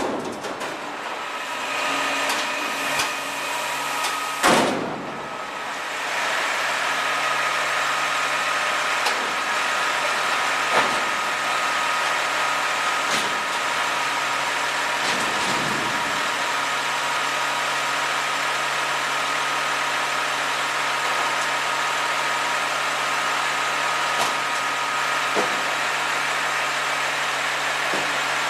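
Front-loader garbage truck running steadily, its engine hum carrying a steady high-pitched whine. Several sharp metal bangs come in the first few seconds, the loudest about four and a half seconds in.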